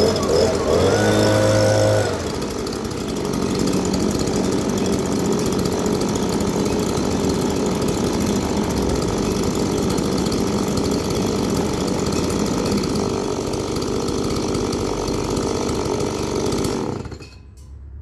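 Small Stihl two-stroke engine running hard, its pitch shifting in the first two seconds and then holding steady, before cutting off suddenly near the end.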